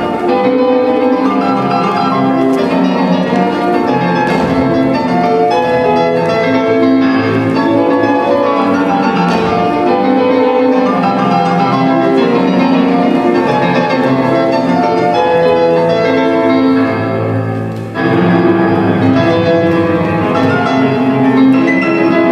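Classical music led by piano, playing without a break. It dips briefly about 18 seconds in, then comes back in full.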